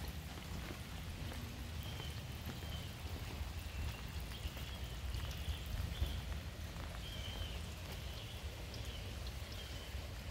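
Steady rain falling on wet pavement and shrubs, with scattered drop ticks and a low rumble underneath.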